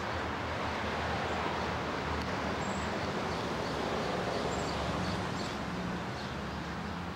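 Steady background noise with a low rumble underneath and a few faint, short high chirps now and then.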